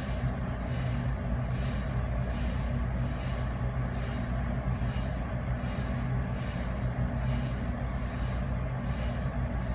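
Steady low mechanical hum with a constant background noise and no distinct events.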